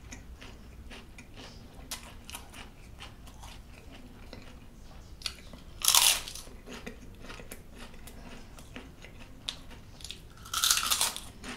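Close-miked chewing of a mouthful of nasi kerabu rice mixed with raw ulam vegetables, with many small wet mouth clicks and smacks. Two louder crunchy bursts come about six seconds in and again near the end.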